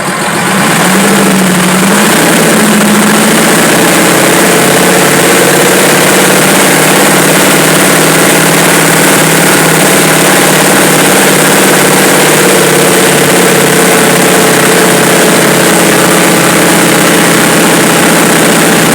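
Fiat 190 truck's diesel engine idling loudly and steadily. The engine swells up in the first second, then holds an even idle.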